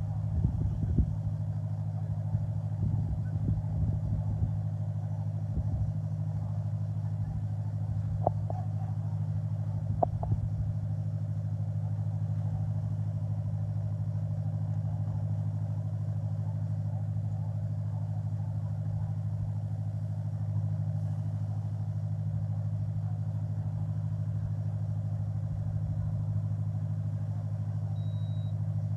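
A motor engine running at a steady drone, with a few short knocks in the first ten seconds.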